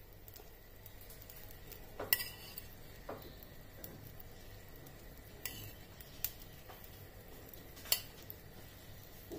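Seekh kababs being placed on rice in a stainless steel pot: a handful of light, sharp clicks and taps of a utensil against the cookware, about five in all, spread irregularly, with the clearest about two seconds in and near the end.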